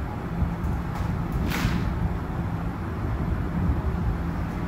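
Ryko Pulse touch-free car wash machinery running as a steady low hum and rumble, with a brief downward-sweeping hiss about a second and a half in.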